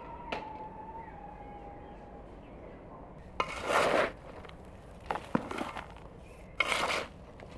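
A metal hand scoop digging into and scraping through a heap of loose garden soil, three scoops in the second half. A bird whistles faintly in the first couple of seconds.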